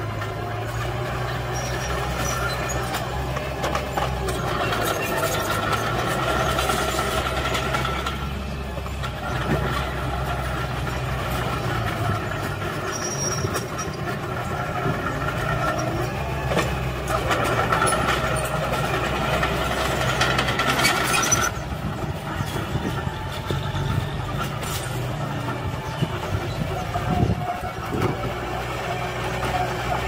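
Small Komatsu crawler bulldozer's diesel engine running steadily under load as it pushes soil, with a metallic squeal from the running gear that comes and goes for a few seconds at a time and scattered clanks of the steel tracks.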